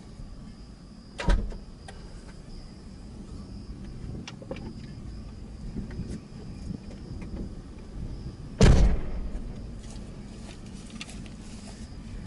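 Two sudden loud bangs about seven seconds apart, the second ringing on for about a second, over a steady low background rumble.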